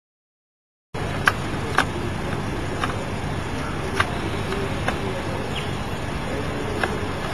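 Silence, then from about a second in a steady low rumble of outdoor street ambience during snowfall, with a few scattered sharp ticks.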